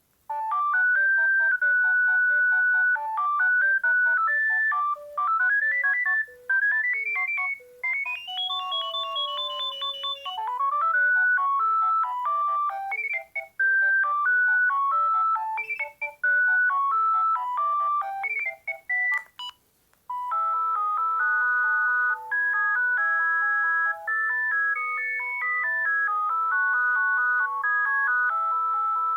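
Ringtone melodies from a Panasonic EB-GD93 mobile phone's speaker: electronic beeping tunes, the first with some sliding notes. About two-thirds of the way through it stops with a click, and after a short pause another ringtone starts.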